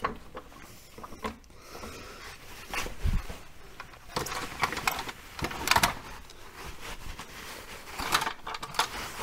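Scattered metallic clunks, knocks and scrapes of an MGB front subframe and suspension assembly being lifted and shuffled into place under the car, with a dull thump about three seconds in and louder knocks around the middle and near the end.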